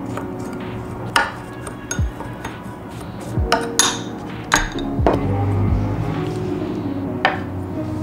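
A spoon scraping and clinking against a ceramic bowl while stirring buttered graham cracker crumbs, with several sharp clinks spread through, over soft background music.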